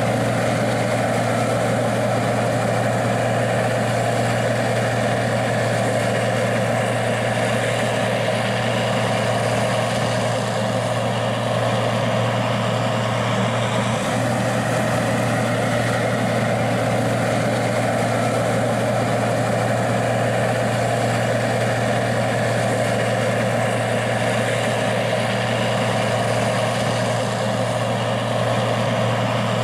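Gleaner R60 combine's diesel engine running steadily, a constant low hum with no change in speed.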